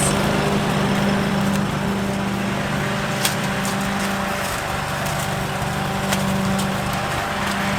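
Lawn mower running steadily, a constant motor hum with a sharp tick about three seconds in.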